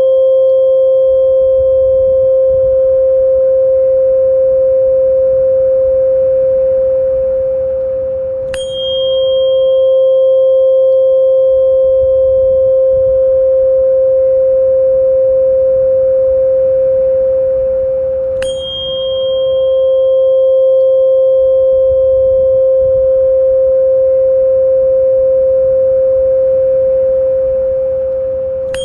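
A steady, mid-pitched pure tone held without a break, played as tinnitus-relief sound therapy, with faint higher overtones. About every ten seconds a sharp click with a brief high ring sounds: once near the start, about nine seconds in, about nineteen seconds in, and again at the very end. The loudness sags slightly just before each click, as at the seam of a repeating loop.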